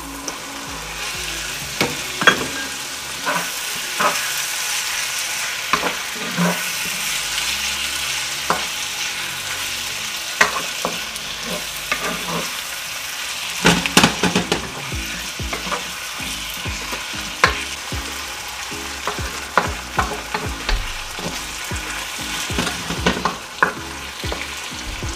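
Salted codfish and sautéed onion, tomato and scallion sizzling in a hot pot, with a utensil knocking and scraping against the pot at irregular intervals as it is stirred; a cluster of louder knocks comes about fourteen seconds in.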